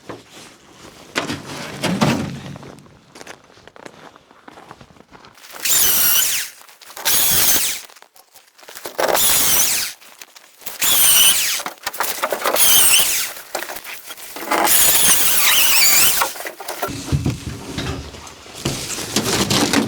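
Shipping crate being pried apart: a run of about six long, wavering squeals as fasteners and boards are forced loose, with a few thunks.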